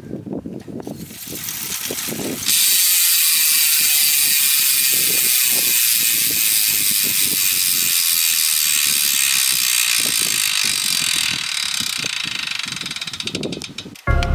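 DT Swiss 180 star-ratchet freehub buzzing as the wheel freewheels, starting about two and a half seconds in. Its pitch falls steadily as the wheel slows, and it cuts off just before the end.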